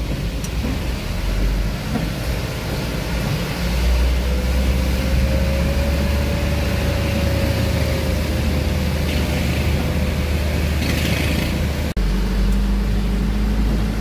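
Mitsubishi Canter truck's diesel engine running steadily under way, heard from inside the cab, with tyre and road hiss from the wet road. A faint whine rises and falls in the middle, and the sound cuts out for an instant about twelve seconds in.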